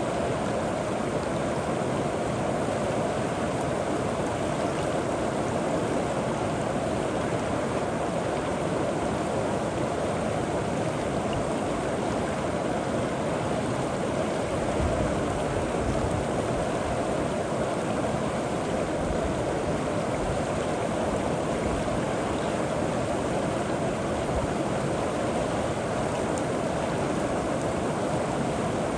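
River water flowing and gurgling over rocks, a steady rushing noise.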